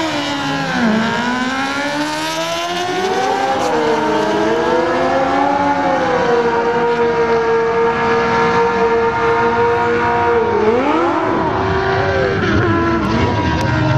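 Dodge Ram Rumble Bee's Hemi V8 at full throttle on a drag-strip pass, climbing in pitch with sharp drops at the gear changes, then holding a steady pitch for several seconds before another drop and rise.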